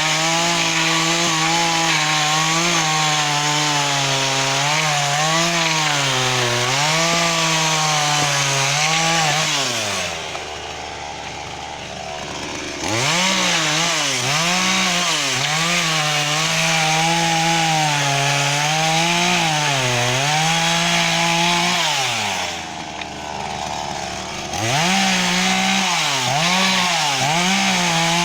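Petrol chainsaw cutting firewood, its engine note wavering up and down under load. Twice, about ten seconds in and again about twenty-two seconds in, it drops back to idle for two or three seconds, then revs up and cuts again.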